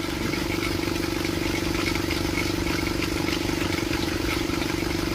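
Engine of a homemade propeller aircraft running steadily at a constant speed.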